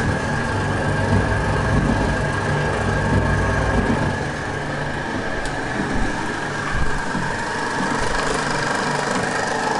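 Stainless-steel twin-shaft paddle mixer running empty: a steady motor and gearbox hum with a steady high whine over it as the paddles turn.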